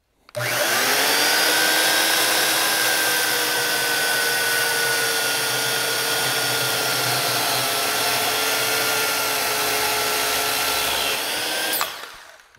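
Corded Skilsaw carpentry chainsaw spinning up and cutting through a 6x6 cedar beam, its motor pitch sagging slightly under load. Near the end it is switched off and its brake stops it quickly, the pitch dropping sharply.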